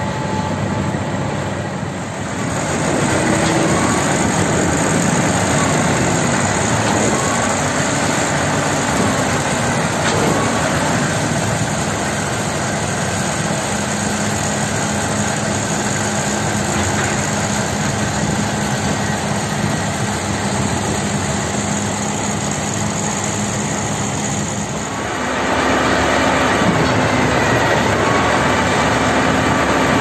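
Isuzu concrete pump truck working during a concrete pour: its diesel engine runs under load driving the pump, a loud steady mechanical din. It grows louder about two seconds in and again near the end.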